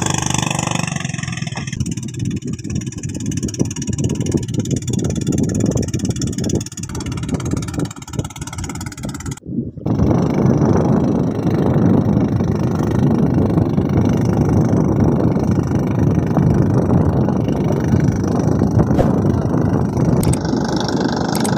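Steady rushing noise of wind buffeting the microphone over the sea, with no engine tone in it. It breaks off briefly near the middle and comes back louder and more even.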